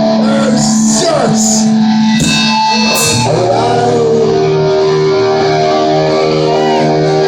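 Live heavy metal band: distorted electric guitar with sharp crash hits in the first three seconds, then a held guitar chord ringing on steadily.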